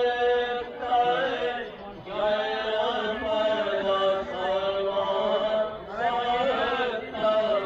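Devotional chanting carried over a horn loudspeaker, sung in long held phrases with short pauses between them.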